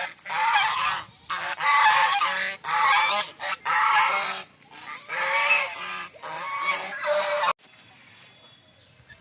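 Domestic geese honking, loud harsh calls following one another in quick succession, cutting off suddenly near the end.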